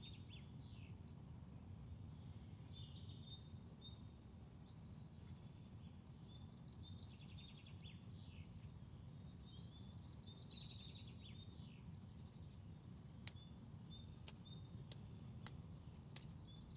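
Quiet ambience: faint birds chirping and trilling over a low, steady background rumble, with a few soft ticks near the end.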